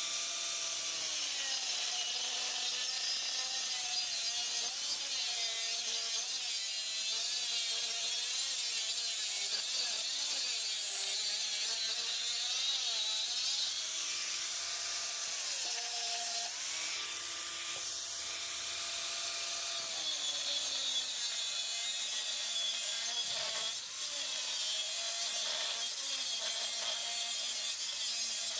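Stick (shielded metal arc) welding on steel pipe: the arc keeps up a steady, high-pitched crackling hiss. Underneath, a faint machine hum slides up and down in pitch.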